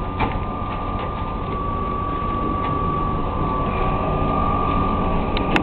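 Hotel elevator in operation: a steady mechanical rumble with a constant high whine, and a few sharp clicks, one just after the start and two close together near the end.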